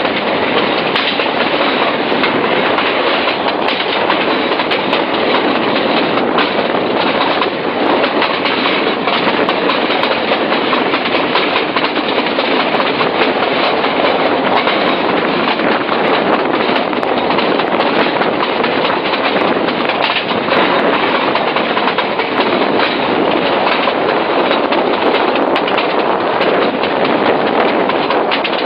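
Metre-gauge diesel locomotive running at speed, heard from the front of the engine: a steady, loud rush of wheels on rail with scattered clicks over the track.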